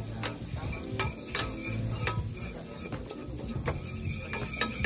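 A metal utensil clinking and scraping against a stainless steel frying pan as butter and brown sugar are stirred, with irregular sharp clinks scattered through.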